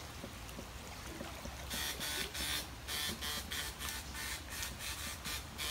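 Electrofishing shocker buzzing in irregular rasping bursts, starting a couple of seconds in: one longer burst, then a quick string of short ones as the current is pulsed into the stream.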